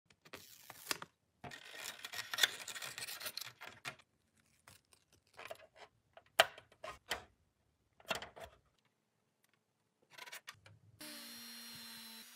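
Light clicks, taps and rustles of hands handling hard plastic toy parts and pressing stickers into place. About a second before the end, a small rotary tool with a felt buffing wheel starts running with a steady hum.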